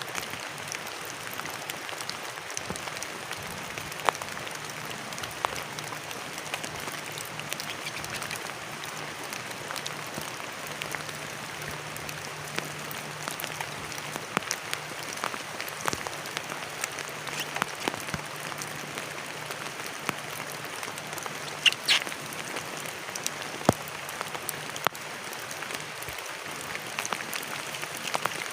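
Steady rain falling, with many separate drops ticking sharply on a surface and a few louder drips along the way.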